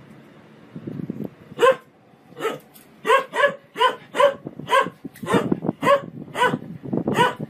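A dog barking repeatedly in short, sharp barks, about two a second and some in quick pairs, starting about a second and a half in.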